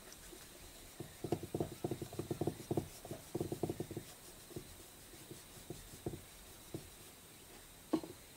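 Dark drawing stick hatching on sketchbook paper: a run of quick, scratchy strokes in the first half, then a few single strokes, and one sharp tap near the end.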